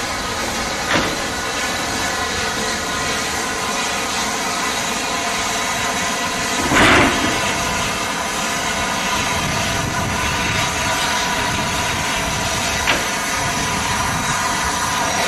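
Rebuilt Bulleid West Country class steam locomotive No. 34028 Eddystone moving slowly while shunting, with a steady hiss of steam. There is a short, louder burst about seven seconds in, and a sharp click about a second in and again near the end.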